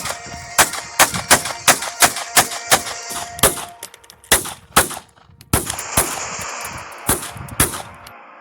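Walther P22 .22 LR semi-automatic pistol firing: a quick string of sharp shots, about three a second, for the first three seconds or so, then several more shots spaced further apart.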